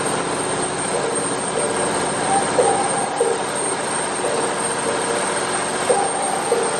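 Canal water bus's diesel engine running steadily under way: a loud, unbroken drone.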